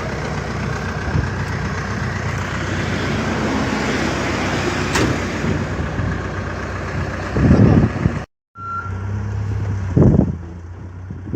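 A heavy machine's engine running steadily with a low hum. It cuts out abruptly about eight seconds in, and a quieter steady hum with a few short louder bursts follows.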